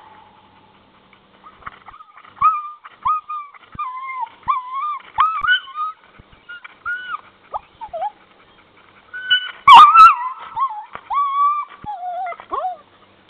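A dog whining in short, wavering high-pitched whimpers, excited at a possum treed above it out of reach, with one louder, sharp yelp about ten seconds in.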